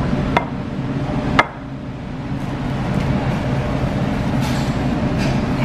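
Steady low rumble of restaurant background noise, with two sharp knocks of dishes against the table. The louder knock comes about a second and a half in.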